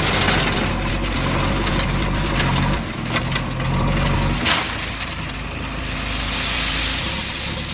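Diesel engine of a backhoe loader running steadily while stone is loaded, with scattered sharp knocks and clatter of rock; the loudest knock comes about four and a half seconds in.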